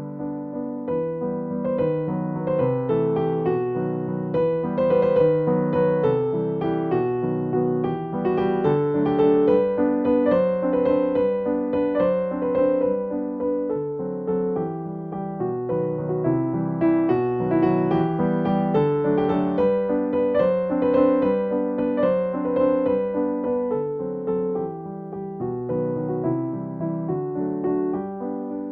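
Slow, gentle piano music, single notes and chords ringing on without a beat.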